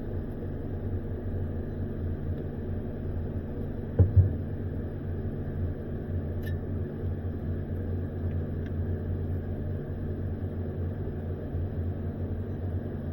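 A steady low mechanical hum, with two sharp thumps in quick succession about four seconds in.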